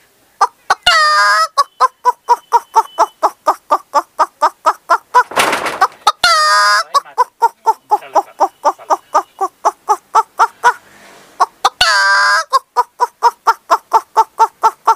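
A woman imitating a hen with her voice: a fast, even run of clucks, about four or five a second, broken three times by a long drawn-out squawk, near the start, about six seconds in, and about twelve seconds in. A breathy rasp comes just before the middle squawk.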